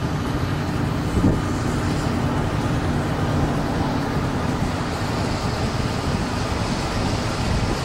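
Car running, with steady road and engine rumble heard from inside the cabin and a single thump about a second in.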